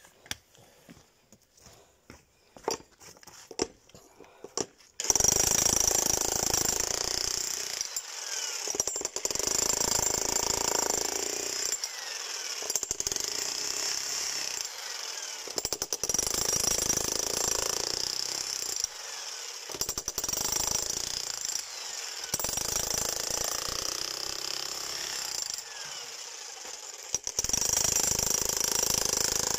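A few faint knocks, then about five seconds in a Yato YT-82001 1600 W electric demolition hammer starts and hammers continuously with its chisel into a thick concrete slab. The level dips briefly several times and rises again near the end.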